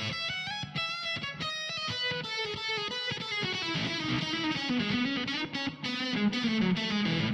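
Fano Omnis MG6 electric guitar with P90 pickups played through two amps on their drive channels: a run of quickly picked notes, then held, ringing notes with the low part stepping down in pitch over the second half.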